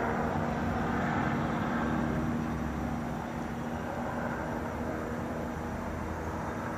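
Helicopter circling overhead: a steady drone of rotor and engine, easing off slightly about halfway through.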